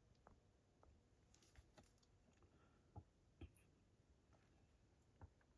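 Near silence, broken by a handful of faint, short clicks and taps of a metal steelbook case being handled.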